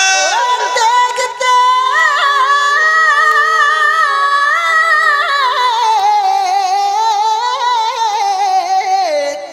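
Kavishri singing: a long, wordless held note with a wavering vibrato, gliding down to a lower pitch about two-thirds of the way through.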